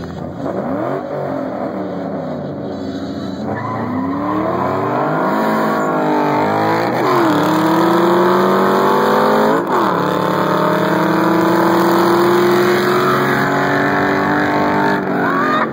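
Turbocharged 2.4-litre four-cylinder of a big-turbo Dodge Neon SRT-4, heard from inside its cabin, accelerating at full throttle through the gears. The engine note climbs in pitch, drops sharply at upshifts about three and a half, seven and nine and a half seconds in, then keeps climbing.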